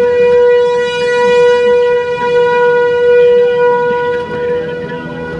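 Outdoor tornado warning siren sounding one long steady tone, easing off a little near the end.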